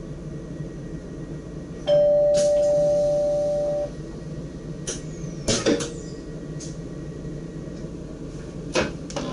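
Two-tone electronic warning signal in a DDZ train's driver's cab, sounding steadily for about two seconds and then cutting off suddenly, over the steady rumble of the moving train. A few sharp clicks and knocks follow.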